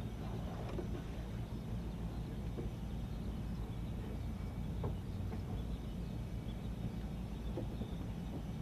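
Steady low machinery rumble with an even hum, with a few faint ticks.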